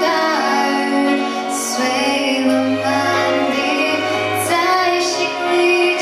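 A woman singing a Mandarin pop ballad into a handheld microphone, with sustained instrumental accompaniment and a bass line beneath her voice.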